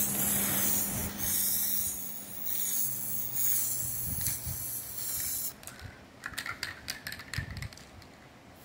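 Aerosol spray-paint can hissing in a run of short bursts, stopping about five and a half seconds in. A few light clicks and rattles follow near the end.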